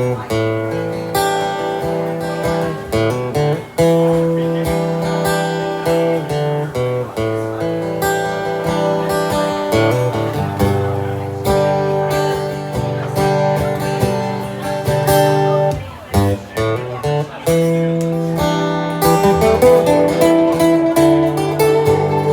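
Acoustic guitar strummed and picked in an instrumental passage of sustained chords, with a brief drop in level about two-thirds of the way through.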